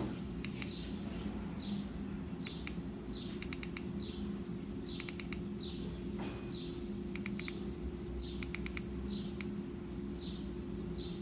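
A small bird chirping over and over, each a short falling chirp, with small quick runs of sharp clicks between the chirps and a steady low hum underneath.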